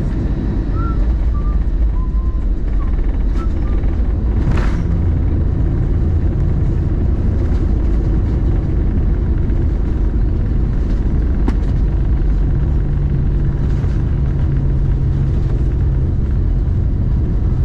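Cabin noise of an Airbus A320 landing: a loud, steady low rumble of the engines and airflow. There is a short burst of noise about four and a half seconds in, and a low steady hum joins from about twelve seconds in.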